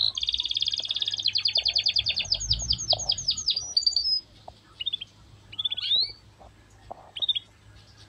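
A songbird singing a rapid run of high, repeated notes for about four seconds, the notes spacing out toward the end, followed by a few short separate chirps.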